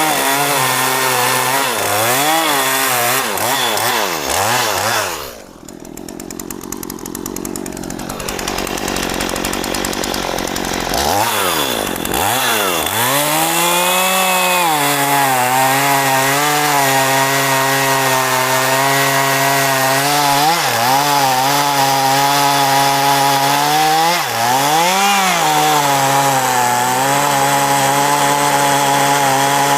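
Two-stroke chainsaw cutting mahogany, its engine note swinging up and down as the chain works the wood. About five seconds in it drops back and runs low for several seconds, then revs up again and holds a steady high note, with a brief dip near the end.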